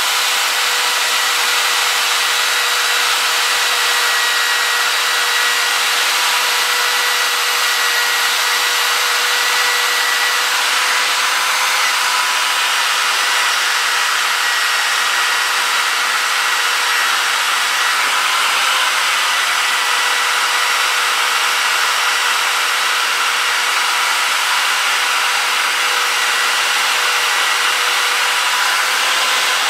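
Corded high-speed rotary tool with an abrasive pad, running with a steady whine as it scrubs the cast-iron deck surface of a Chrysler 440 big-block clean to prepare it for the cylinder heads.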